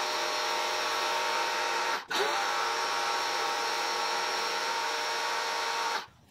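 Teande 2300 PSI electric pressure washer running under load, spraying soap solution through its stock soap applier: a steady motor whine over the hiss of the spray. It cuts out briefly about two seconds in, starts again, and stops near the end.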